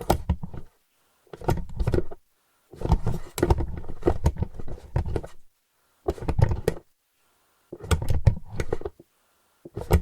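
Wooden board-game box shaken in short bursts, the plastic game pieces inside rattling and clattering against the wood. About six shakes, most under a second, one lasting nearly three seconds, with brief silent pauses between.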